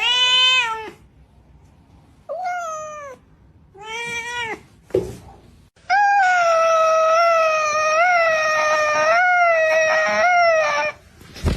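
Domestic cat meowing: three short meows, then one long drawn-out yowl of about five seconds that wavers slightly in pitch.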